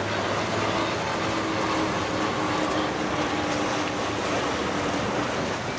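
Motorboat engines running, a steady note sinking slightly in pitch, over a steady hiss of wind and water.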